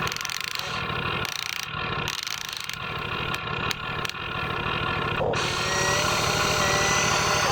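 Radio-controlled model construction machines running: a steady engine-like drone with a few sharp clicks, then a higher motor whine that rises slightly and joins in about five seconds in.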